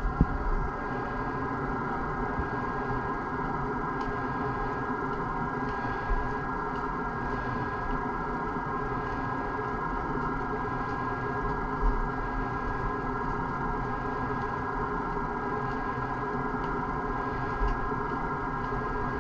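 A steady machine hum made up of several fixed tones, unchanging throughout, with a few faint knocks now and then.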